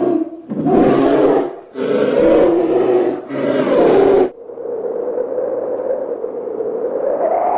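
A large animal calling: three loud, rough roars about a second each, then one long, steadier drawn-out call that rises slightly in pitch near the end.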